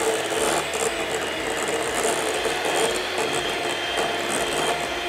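Electric hand mixer running steadily, its twin beaters whirring through thick peanut butter frosting in a glass bowl.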